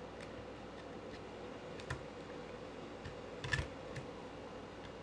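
Scattered light clicks and taps of a screwdriver and hands against the plastic chassis of a 1/10 RC car as the motor screws are loosened. The loudest is a short cluster of clicks about three and a half seconds in, over a faint steady hum.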